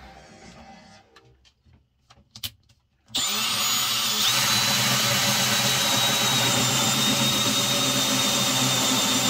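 Cordless brushless drill with a hole saw cutting a hole. It starts suddenly about three seconds in after a few light clicks, then runs steadily with a high whine.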